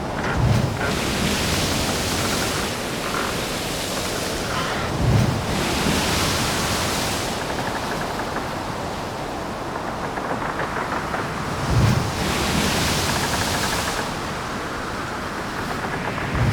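Waves breaking on a shore, one about every five or six seconds, each opening with a low thump and running on as a long rushing hiss, with wind on the microphone.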